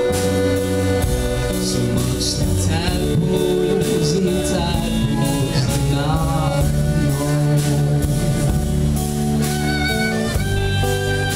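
A live string band playing: upright bass, hollowbody electric guitar, fiddle and drum kit, with a man singing over them in the middle.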